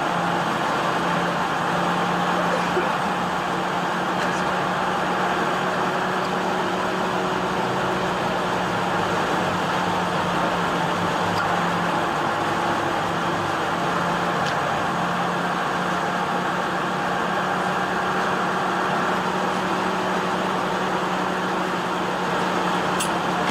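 Steady motor vehicle noise: an engine humming evenly under a constant wash of road or traffic noise.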